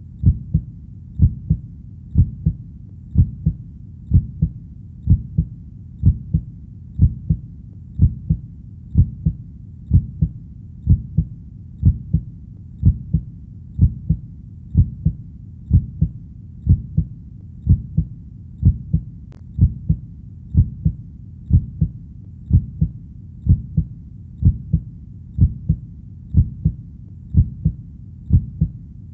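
Heartbeat, a steady lub-dub double beat about once a second, deep and low.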